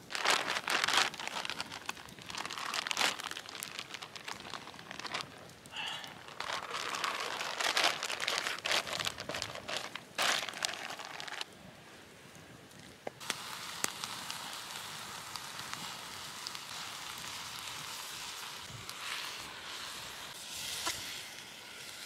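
Campfire cooking: irregular crackling and crinkling for about eleven seconds, then, after a short quieter gap, a steady sizzle from vegetables frying in a small pan held over the fire.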